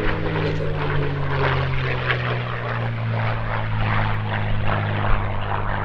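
P-51D Mustang's Merlin V-12 engine and propeller heard as the fighter flies past, a steady drone whose pitch settles slightly lower in the first second.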